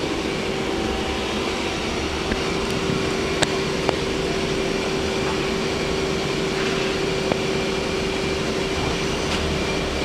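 Hardinge SR 150MSY CNC turning center running under power: a steady hum with a steady mid-pitched whine from the spinning drive, and a few faint clicks.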